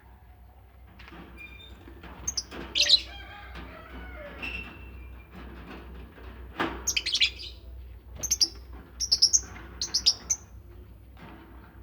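Caged lovebirds chirping: short, shrill, high calls that come in quick clusters, with quieter chatter between them.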